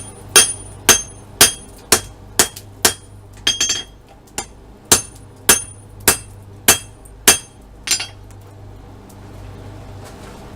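Hand hammer striking hot steel on an anvil about twice a second, each blow ringing, with a brief cluster of lighter taps mid-way; the blows stop near the end. This is the hammering of a forge weld, joining circular-saw-blade steel into a railroad spike.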